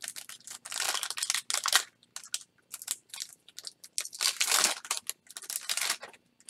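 A foil Topps Chrome trading-card pack being torn open and crinkled by hand: irregular crackling and tearing, loudest about a second in and again from about four to six seconds.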